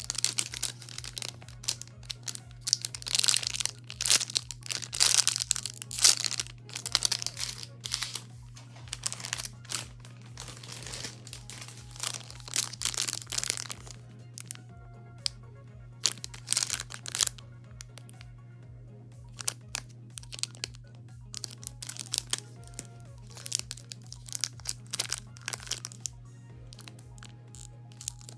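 Clear plastic bags around squishy toys crinkling in irregular bursts as they are handled and squeezed. The bursts come thick in the first half and grow sparser after about fourteen seconds. Background music plays underneath.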